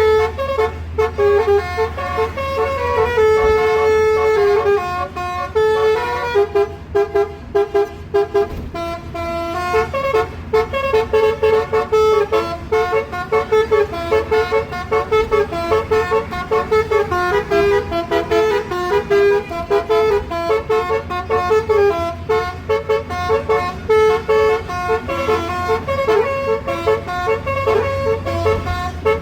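Basuri electronic musical vehicle horn playing a tune of short, stepped horn notes, many of them quick repeated staccato toots.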